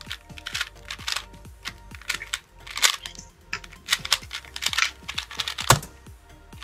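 A 2x2 speed cube being turned fast by hand: a quick, irregular run of plastic clicks and rattles as the layers snap around. About five and a half seconds in, a single louder tap on the laptop keyboard stops the solve timer.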